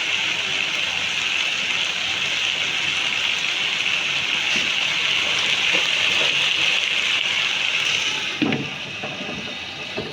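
Okra masala sizzling in a pan: a steady hiss that grows quieter about eight seconds in, with a brief low knock at about the same moment.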